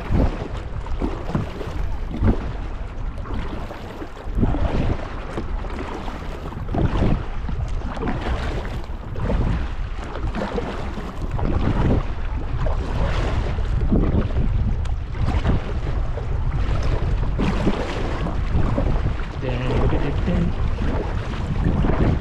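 Kayak paddle strokes splashing in river water, a short splash every second or two, over wind buffeting the microphone.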